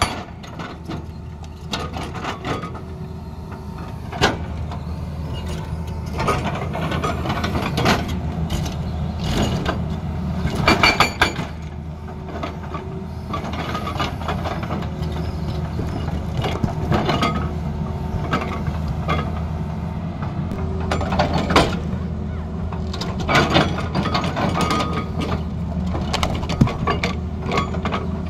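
Hydraulic rock breaker on a Tata Hitachi excavator hammering into large boulders over the steady running of the excavator's diesel engine. Irregular sharp knocks and clanks of chisel on stone come throughout.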